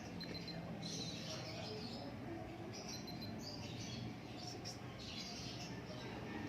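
Faint, scattered high chirps, like small birds calling, over a steady low hum.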